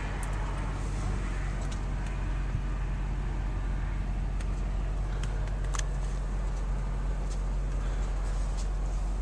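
2003 Honda Accord's engine idling steadily, heard from inside the cabin, with a few faint ticks over it.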